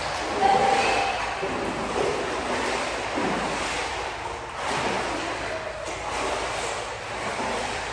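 Indoor swimming pool din: a steady wash of splashing water echoing around the hall, with brief bits of voices mixed in.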